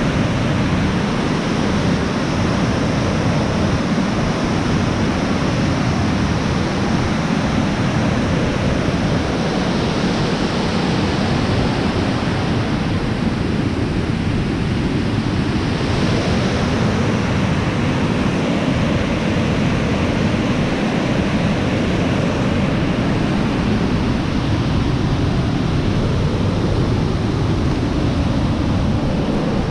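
Loud, steady rush of white water pouring through a concrete dam's spillway gates and tumbling over the rocks of a waterfall.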